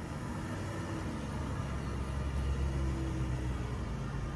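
A 2007 Mercedes-Benz CLK350's 3.5-litre V6 running as the car drives slowly past, its low hum growing slightly louder as it comes near.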